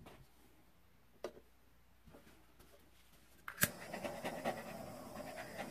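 A heat gun switches on with a click about three and a half seconds in, then runs with a steady blowing whir as it is played over wet resin.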